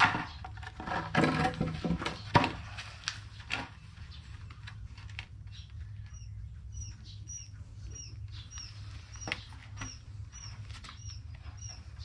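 Rustles and knocks as the trap mesh is handled and folded, in the first few seconds. Then, from about six seconds in, an animal's short, high, falling squeaks repeat about two or three times a second over a low steady hum.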